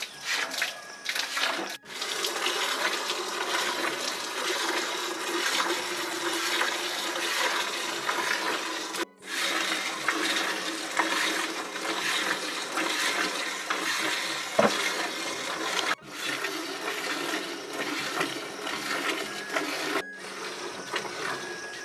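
Water buffalo being milked by hand: streams of milk squirting into a partly filled aluminium bucket, a continuous frothy hiss that cuts off briefly four times.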